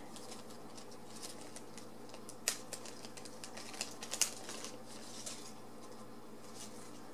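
Light clicks and rustles of small items and packaging being handled and opened by hand, with two sharper clicks about two and a half and four seconds in.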